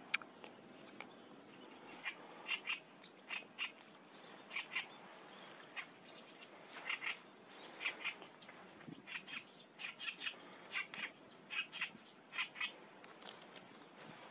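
Small birds chirping: short high notes, often in quick pairs or little runs, repeated many times from about two seconds in. A sharp click right at the start.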